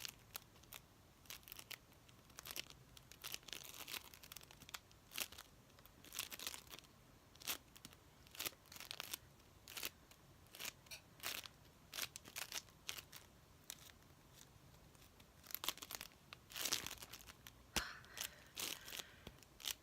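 A ball of floam squeezed and kneaded by hand, giving irregular sticky crackles and pops, thickest near the end.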